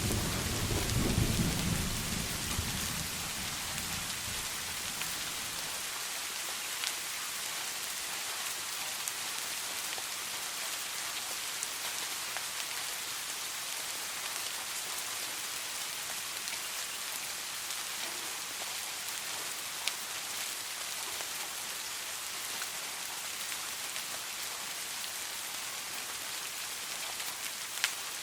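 Steady heavy rain falling, with the low rumble of a thunderclap dying away over the first few seconds.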